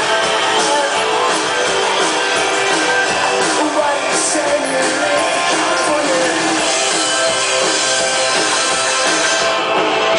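Live pop-rock band playing, with electric guitar and a drum kit.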